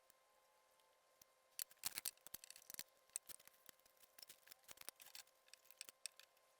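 Faint, irregular clicks and light taps of small parts being handled during fitting of a knife handle, starting about a second and a half in, over a faint steady hum.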